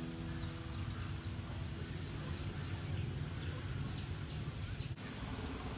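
A small bird chirping repeatedly, short falling chirps about twice a second, over a steady low background rumble.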